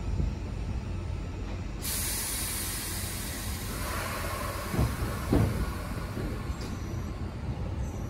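MBTA Red Line 1500-series subway train releasing its air brakes: a sudden loud hiss about two seconds in that slowly fades over several seconds, over a steady low rumble, with two brief low swells midway as the train begins to pull out.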